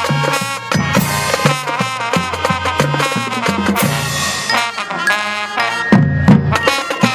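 High school marching band playing its halftime show: brass over a drumline of snares and bass drums, with a held chord partway through and heavier drum hits near the end.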